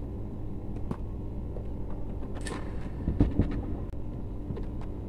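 Pliers and electrical wires being handled at a junction box on a wooden board: scattered light clicks and one dull knock about three seconds in, over a steady low hum.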